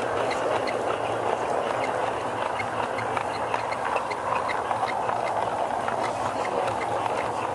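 G-scale garden railroad train running along its track, heard from a car of the train: a steady rolling rumble of wheels and drive, with light clicks repeating about three to four times a second.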